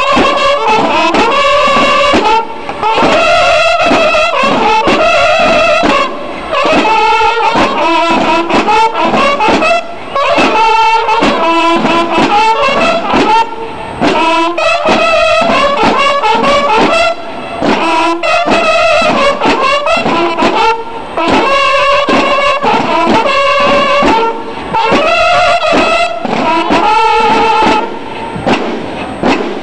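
Brass instruments playing a ceremonial tune in short phrases, with a brief break about every four seconds, as music for the farewell of the Mexican flag.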